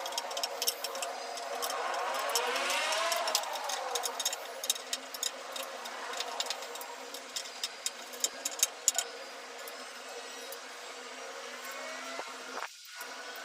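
A motor whines up in pitch and back down over a few seconds, over a steady mechanical hum, with irregular sharp clicks and ticks throughout.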